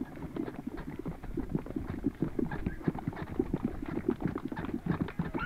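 Many overlapping footsteps of a group jogging together on gravel and grass, quick and irregular.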